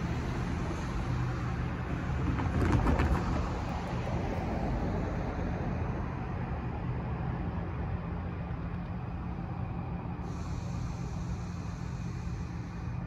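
A car driving over the railroad crossing, its tyres knocking a few times on the rails as it passes about two to three seconds in, over a steady low traffic hum.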